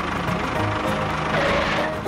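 Background music with a steady beat over the whir of a toy tractor's small electric motor driving it along, which stops near the end.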